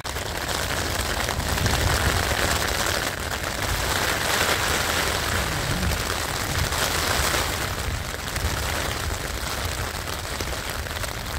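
Heavy rain pattering densely on a Vango Starav 200 tent's flysheet, heard from inside the tent, with a low rumble of wind underneath.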